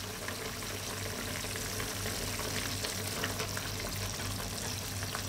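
Tomato and ginger broth at a rolling boil in a nonstick pan: a steady bubbling with small pops.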